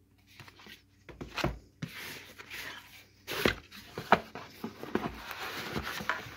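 Cardboard box being opened and its packaging handled by hand: card rustling and scraping, with a few sharp knocks and clicks.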